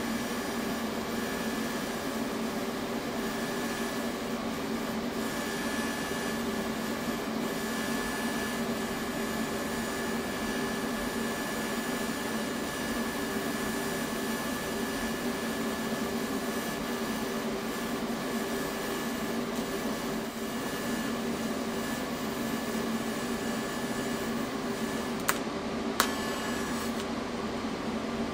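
TIG welding arc on mild steel at about 140 amps, a steady buzzing hiss as filler rod is fed into the puddle. Two sharp clicks come near the end.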